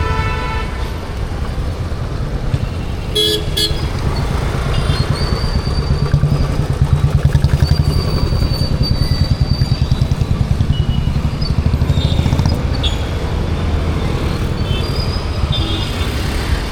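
Busy Indian street traffic with motorcycles and other vehicles running past and horns tooting: one horn trails off early in the first second and a short toot comes about three seconds in. A close engine throbs through the middle over a steady low rumble.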